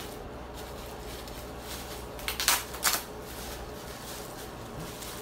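Plastic bubble wrap being pulled off a boxed item, giving a few short crinkles about two and a half and three seconds in.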